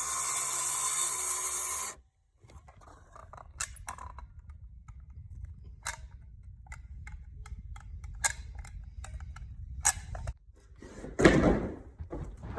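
A power tool runs with a loud, steady hiss and stops abruptly about two seconds in. Then come scattered knocks, clicks and scraping from hand work on subfloor boards, with a louder thud near the end.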